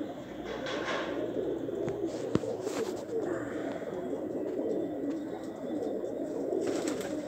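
A large flock of domestic pigeons cooing together in a dense, continuous chorus, with one sharp click about a third of the way in.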